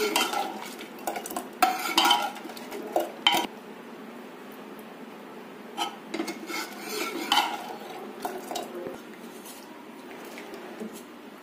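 A spatula stirring thick sambar in a pressure-cooker pot, knocking and scraping against the pot's sides. A run of sharp clacks comes in the first three and a half seconds, then softer stirring follows.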